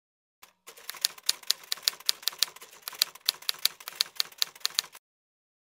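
Typewriter keys clacking in a quick, uneven run of about five strokes a second, starting about half a second in and cutting off suddenly near the end.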